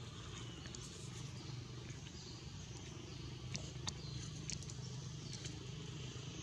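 Quiet outdoor ambience: a steady low hum, with a few sharp faint clicks and short high chirps in the middle.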